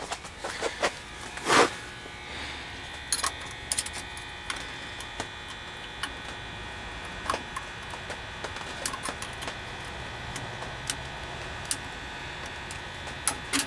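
Light scattered clicks and scraping of a small file working the ignition points in the distributor of a 1967 VW bus engine, cleaning points suspected to be dirty. A steady hum runs underneath from about two seconds in.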